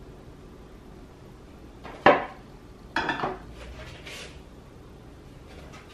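A metal financier pan and utensils clattering as they are set down and moved on a tabletop: a sharp knock about two seconds in, a second clatter a second later, then a fainter one.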